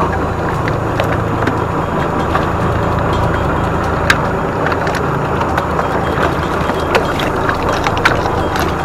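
Fishing boat's engine running steadily, a low even hum, with a few short sharp clicks over it.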